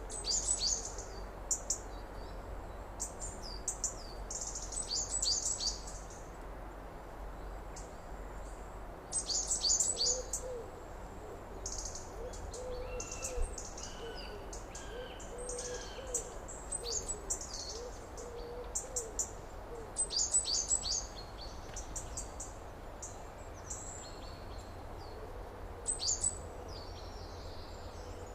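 Outdoor summer ambience of birds: bursts of quick, high chirps and song phrases every few seconds, over a steady low rumble. From about ten seconds in, a soft, low call repeats over and over for around ten seconds.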